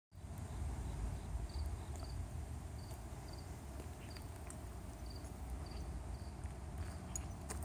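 An insect chirping in short high-pitched pulses, about two a second, over a steady low rumble.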